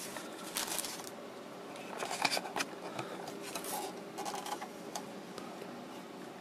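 Handling noise: a paper manual being set down and a small plastic transistor-radio case being picked up and turned over, giving scattered light rustles, scrapes and clicks.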